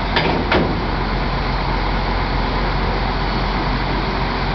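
Steady noise of distant road traffic, with two brief sharp sounds close together about a quarter and half a second in.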